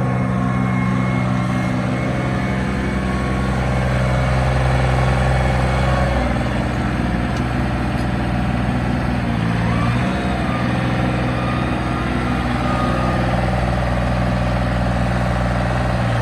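Ford backhoe's engine running steadily, its pitch dipping and shifting briefly about six seconds in and again about ten seconds in.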